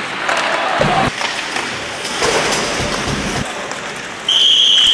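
Ice hockey play in an arena: general crowd noise with sharp clicks of sticks and puck on the ice, then about four seconds in a referee's whistle blows one loud, steady, shrill note that stops play.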